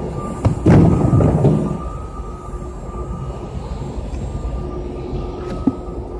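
Steady machinery hum in a large warehouse, a low rumble with a faint high whine and a lower tone held throughout. About a second in, a brief loud knock and rustle, like the phone or a cardboard box being knocked, with a sharp click near the end.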